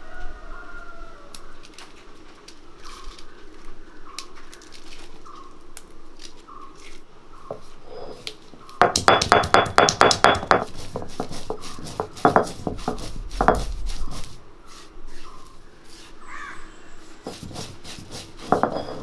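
Handling clatter of cooking work: a rapid run of sharp clicks and rattles lasting about two seconds around the middle, with scattered clicks and knocks before and after.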